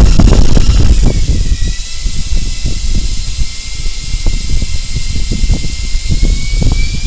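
Home-built Ingenuity-style RC helicopter's electric motors and rotors. There is loud low rotor noise as it sets down, then a steady motor whine while the rotors spin with it resting on the floor. The whine rises near the end as the throttle comes up.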